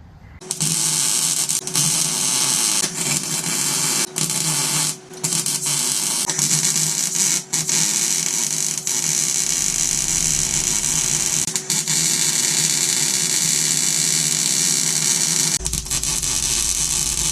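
Electric arc welder laying weld on steel cradle plating, a loud, dense crackle over a steady hum. It breaks off briefly several times as the bead is stopped and restarted, and cuts off near the end.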